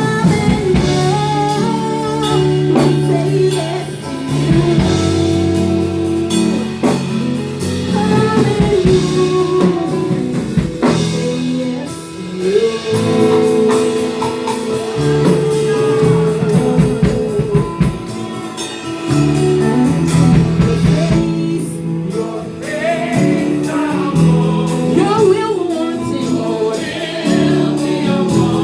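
Live gospel praise-and-worship music: singing over a band with drum kit and guitar.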